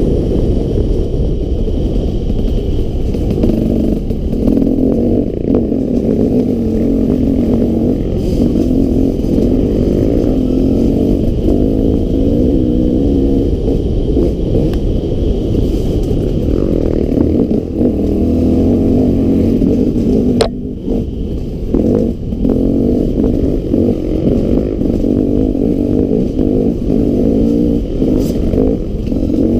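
Enduro motorcycle engine running hard while being ridden, the revs rising and falling with the throttle, with a short let-off about twenty seconds in.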